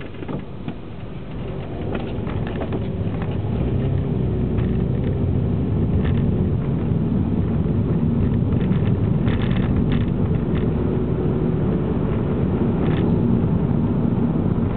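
Engine and road noise heard inside the cabin of a 2009 Vauxhall Astra 1.8 petrol automatic on the move, getting louder over the first few seconds as it picks up speed, then steady. A few light clicks sound over it.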